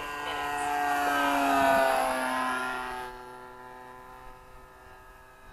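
Nitro (glow-fuel) model aeroplane engine flying past. It grows louder to about a second and a half in, its pitch dropping as the plane passes, then fades away.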